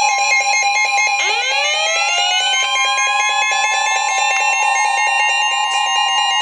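Emergency alert attention signal: loud, steady electronic alarm tones, joined about a second in by a rising sweep of tones that levels off. It heralds a flash flood warning.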